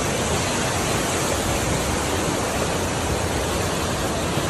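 Floodwater rushing down a concrete-walled stream channel: a steady, even rush of churning muddy water.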